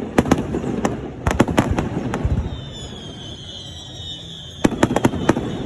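Fireworks display: clusters of sharp cracks and bangs over a continuous low rumble. A high whistle starts about halfway through and falls slightly in pitch.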